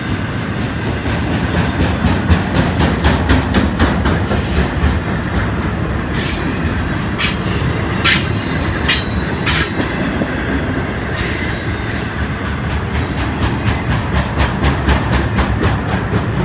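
Intermodal container freight train rolling past close by: a steady low rumble of wheels on rail with rapid clicking over the rail joints, and short high-pitched wheel squeals now and then.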